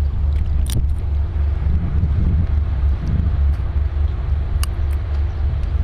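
A steady low rumble, with two sharp snaps of airsoft gun shots, one about a second in and one near the end.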